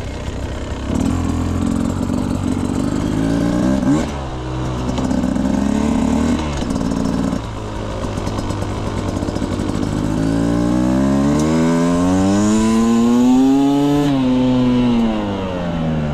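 2025 Beta Xtrainer 250 single-cylinder two-stroke engine being ridden. In the first seven seconds it revs up and settles twice. About ten seconds in it pulls a long roll-on, rising in pitch for about four seconds, then eases off near the end.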